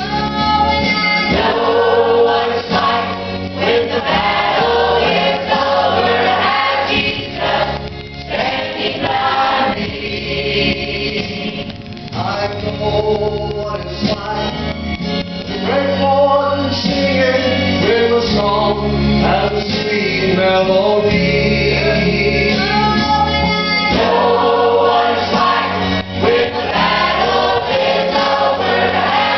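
Church choir singing a gospel song, with a man singing lead at the front, over instrumental accompaniment whose low bass notes are held and change every second or two.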